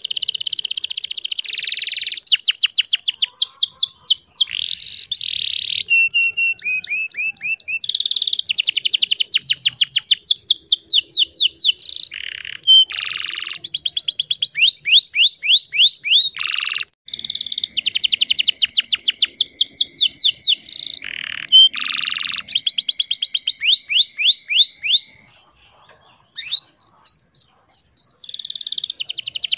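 Domestic canary song: long runs of rapid, high-pitched repeated notes and rolling trills, changing from one phrase to the next, with a short lull near the end.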